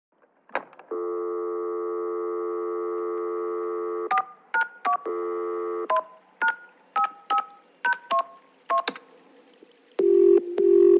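Telephone sound effect: a click, then a steady dial tone, then about ten touch-tone keypad beeps as a number is dialled, with the dial tone returning briefly after the first three. Near the end comes a ringing tone in two short bursts.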